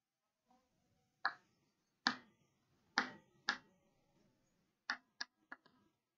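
Chalk tapping and clicking on a blackboard as a word is written: several sharp knocks in the first half, then a quicker run of lighter ticks near the end.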